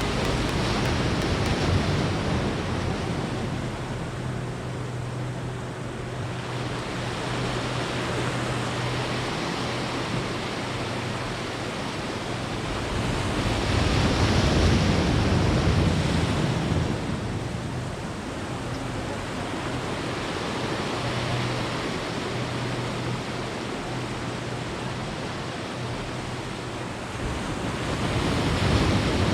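Sea surf: waves washing in with a steady rush that swells louder about halfway through and again near the end.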